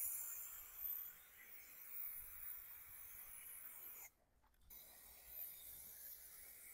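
Aerosol spray can of Raptor bed liner hissing as it sprays a coat onto a truck. The hiss drops out for about half a second a little after halfway, then carries on.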